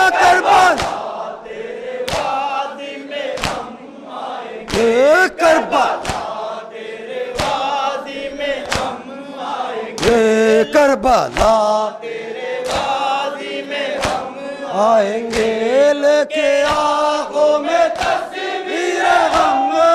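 A group of men singing a Muharram mourning chant (noha) in unison while beating their chests in time, with sharp hand-on-chest slaps about once a second.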